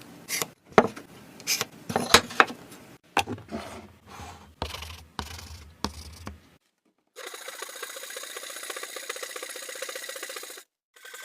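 Hand tools working wood: a run of sharp knocks and clicks with rubbing between them, then after a short pause a steady scratching rasp lasting about three and a half seconds.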